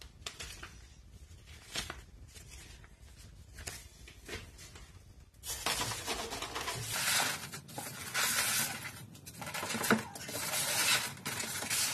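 Paper wrapping and styrofoam packaging rustling and scraping against a cardboard box as a boxed stand mixer is pulled out. The scraping gets louder about halfway through, with a sharp knock near the end.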